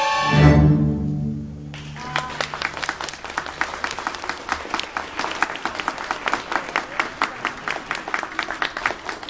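A string orchestra of violins, cellos and double basses holds a loud final chord, deep in the basses, and cuts it off after about a second and a half. The audience then applauds.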